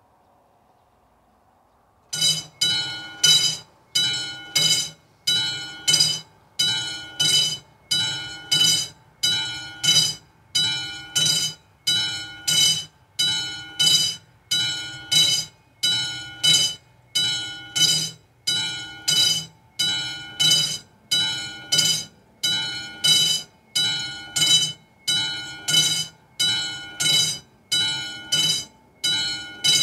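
Mechanical bell of an AŽD 71 railway level-crossing warning installation, starting about two seconds in and then striking steadily, a little more than once a second, each stroke ringing and dying away. The crossing has been activated to warn of an approaching train.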